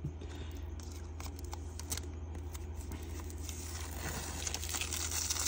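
Plastic card sleeve and rigid plastic top loader crinkling and rustling as a photo card is worked in and out of the top loader to straighten it; the crinkle grows brighter over the last second or so.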